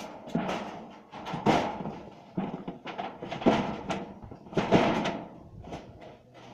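Corrugated metal roofing sheet rattling and scraping as it is pushed up and laid onto a roof, in a run of irregular clattering bumps, the loudest about halfway through and about three-quarters through.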